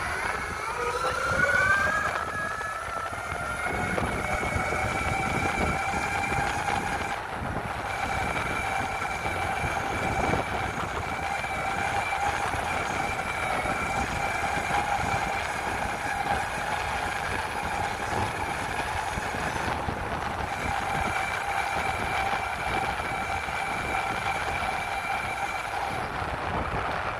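Electric motors of an SYL-08 V3 off-road electric mountainboard whining under way: the pitch rises over the first couple of seconds as the board speeds up, then holds steady while riding. A steady rough noise runs beneath the whine.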